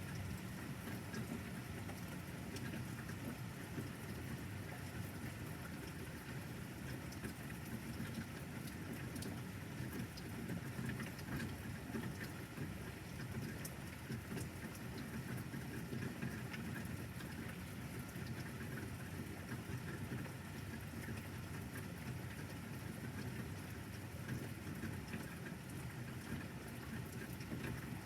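Steady thunderstorm rain falling, with many small drop impacts ticking close by.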